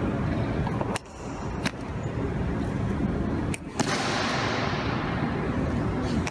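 Marching boots striking a polished stone floor: a few sharp, echoing clacks spaced apart, over the steady noise of a crowd in a large hall.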